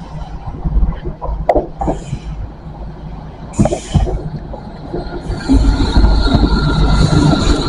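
Train on the rails at a station: scattered knocks and short hisses, then about five and a half seconds in a loud rumble of wheels on track starts, with a steady high-pitched wheel squeal over it.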